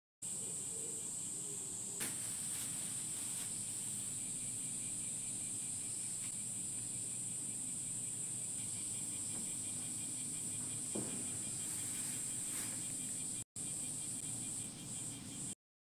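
Steady, high-pitched chorus of summer insects, with a couple of light knocks from pots and garden things being handled. The sound cuts out for an instant near the end.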